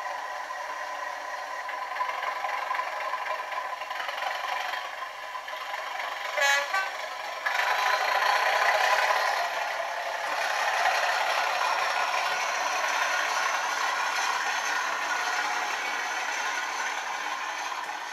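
Sound-fitted 00-scale Bachmann Class 37 model diesel locomotive playing its engine sound through its small onboard speaker. A short horn blast comes about six seconds in, and the engine sound then steps up louder as it powers up.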